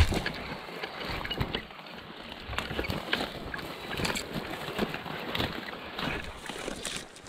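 Footsteps and rustling as someone pushes through dry grass and brush, with irregular crunches, twig snaps and a sharp knock at the start.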